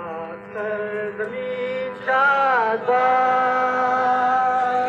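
A single male voice chanting or singing in long held notes, sliding in pitch between them, with one note held for about two seconds near the end.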